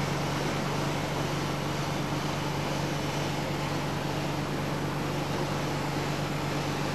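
A steadily running engine: an even drone with a constant low hum and no change in speed.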